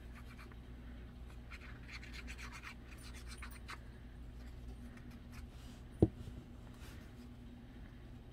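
Scratchy rubbing of a plastic glue-bottle nozzle dragging across a strip of paper as glue is spread on it, then a single sharp knock about six seconds in as the glue bottle is set down on the wooden table.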